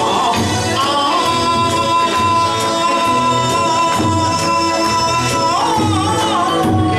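Kawachi ondo folk singing: a male singer holds one long note for several seconds, then bends it near the end of the line, over live accompaniment with a steady beat.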